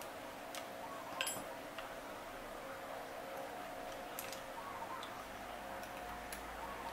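Scattered small metallic clicks and taps from the parts of an Okuma Komodo baitcasting reel and small tools being handled during disassembly, the loudest about a second in with a brief ring, over a steady low hum.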